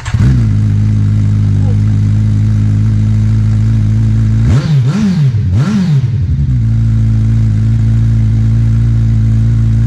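Kawasaki Ninja 1000SX's inline-four engine run with the silencer removed, straight through the open link pipe. It has just fired and settles to a loud idle, then revs up and down twice in quick blips about halfway through before dropping back to idle.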